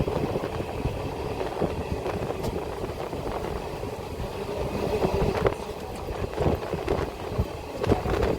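Passenger train running along the track: a steady low rumble of wheels on rails, with irregular clacks that are loudest in the second half.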